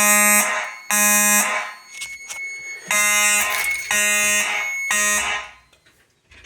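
Simplex mechanical fire alarm horns sounding in the temporal-3 evacuation pattern: harsh buzzing blasts of about half a second, three in a row a second apart, then a pause before the next three. The horns stop about five and a half seconds in.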